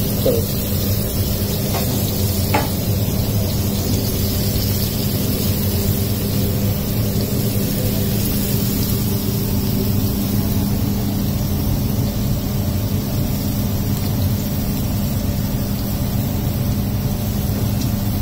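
Green masala frying in oil on a flat steel griddle, a steady sizzle over a constant low hum, with a couple of light clicks about two seconds in.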